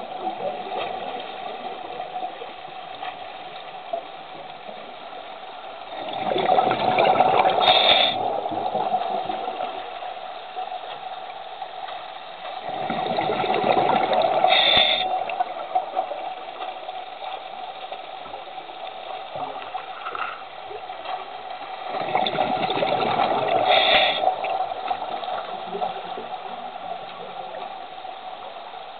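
Scuba diver breathing through a regulator, heard underwater: three rushing gushes of exhaled bubbles about eight seconds apart, each lasting about two seconds, over a steady underwater hum.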